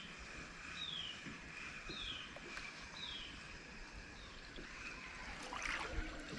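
A bird repeating a short, falling call note about once a second, stopping about four seconds in, over faint outdoor quiet. Near the end come a few light knocks and rustles.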